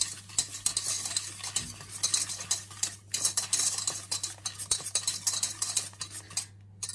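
Wire balloon whisk beating an egg and sugar in a stainless steel pot: fast, steady scraping strokes of the wires against the metal, stopping shortly before the end.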